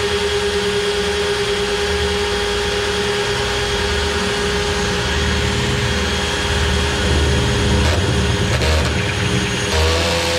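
Electric drill running steadily under load, with a steady whine, boring a hole through the thick steel of a narrowboat's metalwork. It stops abruptly at the end.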